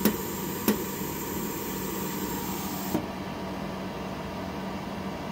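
A few sharp, short clicks from a DADO dental laser welder firing pulses on a molar band weld at a large spot size: two less than a second apart at the start, a fainter one about three seconds in, over a steady machine hum and hiss.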